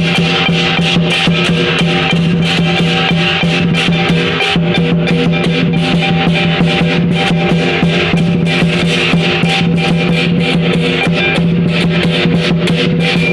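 Lion dance percussion playing loud and fast: rapid drumbeats and cymbal clashes over a steady held tone, cutting off abruptly at the very end.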